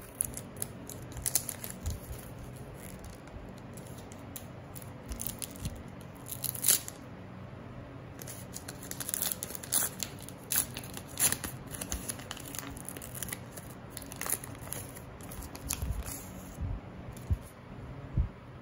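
Foil wrapper of a Panini Adrenalyn XL trading-card pack being torn open and crinkled by hand, in short irregular rips and crackles, busiest in the middle.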